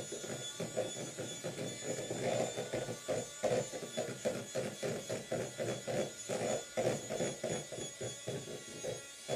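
Electric hand mixer whipping cream in a plastic bowl: a steady high motor whine with a rhythmic churning pulse, a few beats a second, as the beaters work through the thickening cream.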